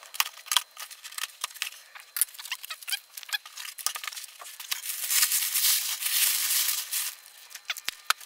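Cardboard shipping box being opened and its crumpled brown kraft packing paper pulled out: a run of crackles and crinkles that thickens into a steady loud rustle about five seconds in, then thins out again to scattered crackles near the end.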